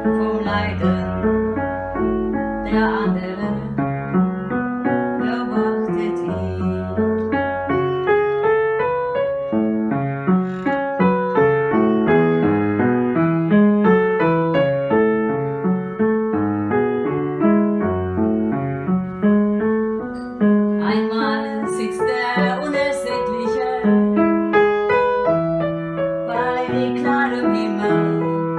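Instrumental piano music: a flowing keyboard passage of many short struck notes over held low notes, with a few brief high shimmering accents.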